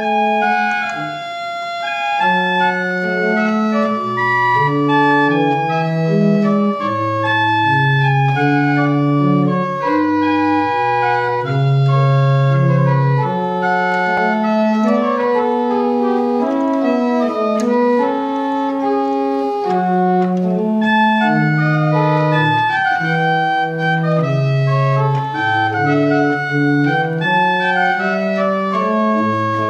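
Pipe organ playing a piece in several parts, with sustained notes moving in steps against each other.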